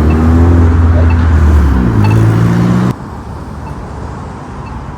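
A motor vehicle's engine running loud and close, its pitch dipping and then rising, cut off abruptly about three seconds in. Steady traffic noise follows, with the crosswalk pushbutton's faint locator tick about once a second.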